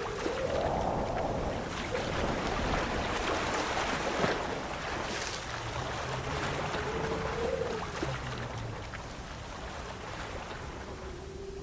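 Rushing wind sound effect: a steady rush with a whistling howl that rises and falls in pitch.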